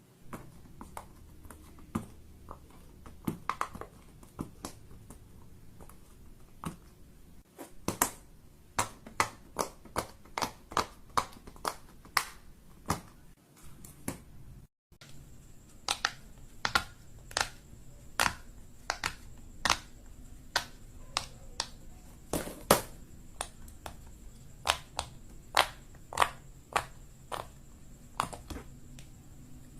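Fidget toys being clicked and popped by hand: a long run of sharp, separate clicks, about one or two a second, with a brief break about halfway through.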